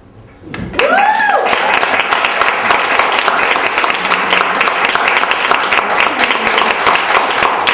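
Audience applauding a poem's final line, a dense steady clapping that starts just under a second in and tapers off near the end, with one voice giving a short rising-and-falling whoop as it begins.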